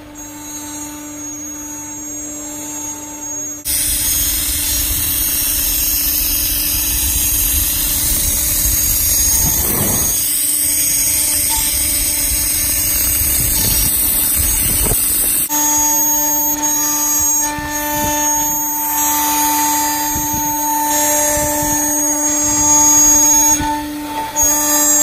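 CNC router spindle running and its bit cutting clear acrylic sheet: a steady whine over the noisy rasp of the cut. The sound changes suddenly about four seconds in, becoming much louder and hissier, and again a little past the middle, when the steady whine returns.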